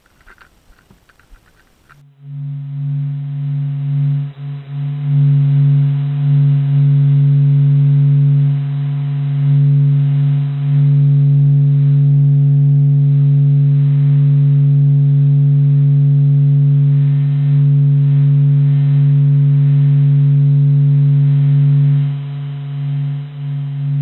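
Sonification of the Sun's oscillations (the 'sound of the Sun'): a steady, deep hum with overtones that starts about two seconds in, wavers briefly near the start and eases off near the end.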